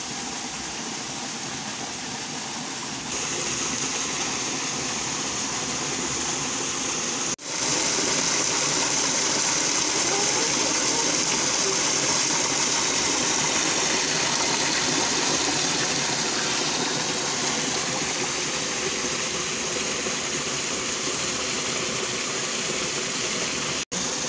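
Steady rush of flowing water from a muddy stream running through a dug earth pit. It grows louder about three seconds in and breaks off for an instant twice.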